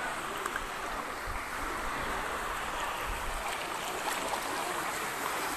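Fast-flowing floodwater rushing down a street, a steady rushing noise.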